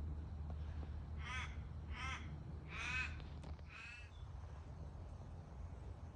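A crow cawing four times, about a second apart, starting about a second in, each call short and harsh, the third the loudest. A steady low rumble runs underneath.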